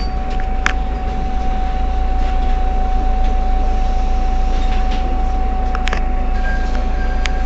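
Heuliez GX 327 city bus idling at a standstill: a steady low engine rumble with a constant whine over it, and a few sharp clicks. Near the end an intermittent beeping starts.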